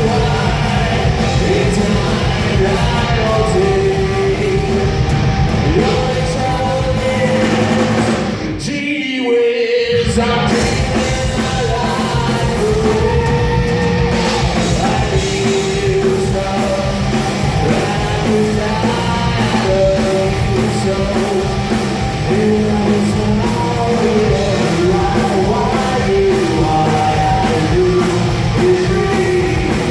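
Punk rock band playing loudly with a singer: electric guitars, bass and drums. The band stops for about a second, roughly nine seconds in, then comes straight back in.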